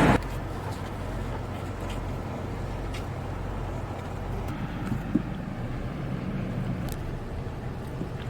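Steady low rumble of a car driving, road and engine noise, with a few faint clicks.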